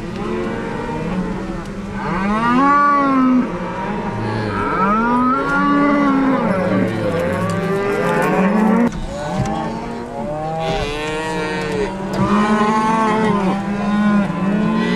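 A herd of cattle on a drive mooing and bawling, many overlapping calls one after another with no break.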